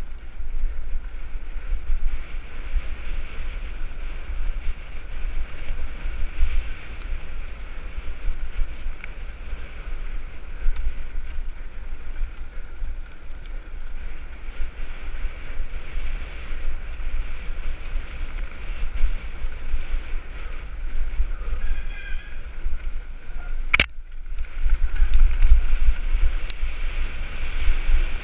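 Wind rushing over a bike-mounted camera's microphone and the rattle of a mountain bike ridden fast over a rough dirt trail, a steady rumble. A sharp click comes late on, after which the rumble gets louder.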